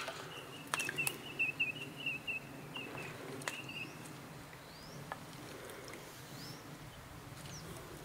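Australian magpie calling: a wavering, warbling call held for about three seconds from about a second in, with a few sharp clicks over it, then a few faint short chirps.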